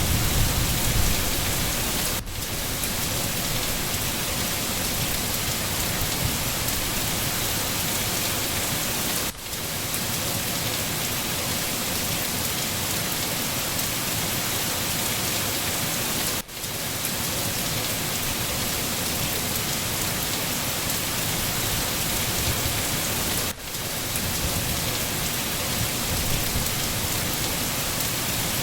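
Steady heavy rain, a dense even hiss of drops falling on surfaces. A low rumble of thunder fades out in the first second, and the rain sound dips briefly about every seven seconds.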